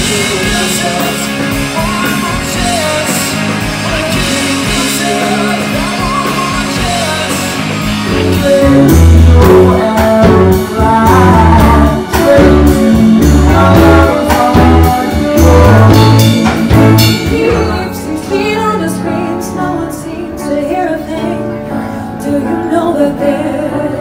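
Live band music with singing, guitar and drums in a blues-rock style, with a heavy bass beat through the middle.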